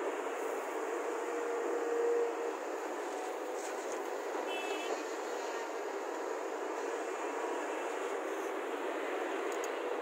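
Hyundai crawler excavator's diesel engine and hydraulics running steadily under load as it digs and swings a bucket of soil. It briefly strains louder with a held whine about two seconds in.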